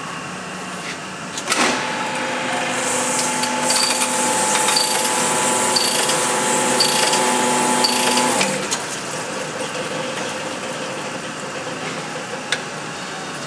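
Cylinder honing machine running a plateau brush up and down a bore of a VQ35 engine block: a steady motor whine under a high hiss that pulses about once a second with each stroke. It starts with a knock a second or two in and stops about seven seconds later. This is the final plateau pass that takes the peaks off the crosshatch.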